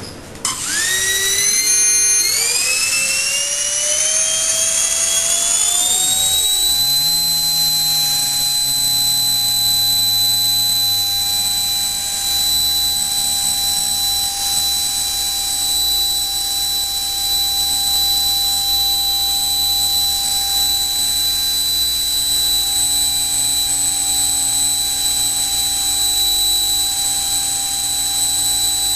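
LEDF68-1A35 electric ducted fan running on a 4S 14.8 V battery: it starts suddenly and spools up with a rising whine over about six seconds, then holds a steady high-pitched whine at constant speed while producing thrust.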